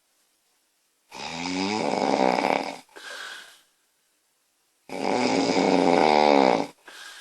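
A woman snoring loudly: two long snores about four seconds apart, each followed by a short, softer sound.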